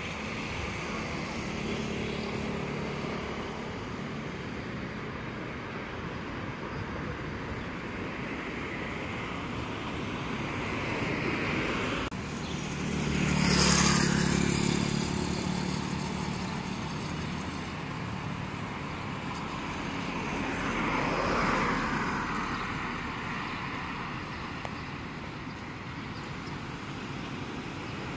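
Road traffic going by: motorbikes and cars pass on the road. A motorbike passes close about halfway through, the loudest moment, and another vehicle passes about three-quarters of the way in with a falling pitch.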